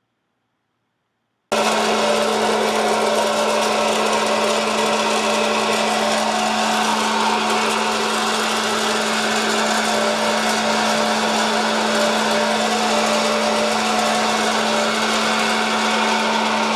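West Bend Air Crazy hot-air popcorn popper switched on, its fan motor running with a steady low hum and a rush of air blowing up through the kernels. It starts suddenly about one and a half seconds in.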